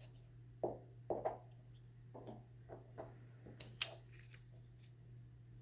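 Paper strips being handled and glued together, heard as a few short rustles and light taps about a second apart, over a steady low hum.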